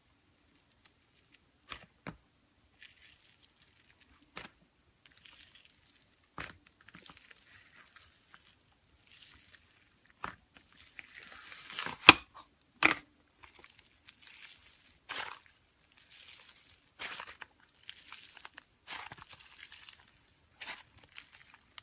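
Slime being played with: irregular crackling and crinkling with sharp snaps, loudest about halfway through.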